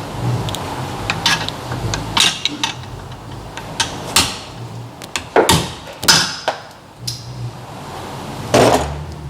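Irregular metal knocks and clanks from a hammer striking a loosened rear suspension bolt to drive it out, about a dozen blows, the loudest about halfway through and near the end.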